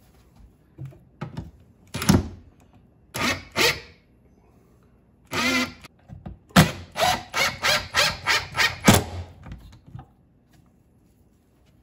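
A few knocks as the fishfinder mount's base is handled on the console's wooden block, then a cordless drill/driver driving screws through the mount's base in short trigger bursts: a longer run about five seconds in, then a quick series of about eight bursts that stops about nine seconds in.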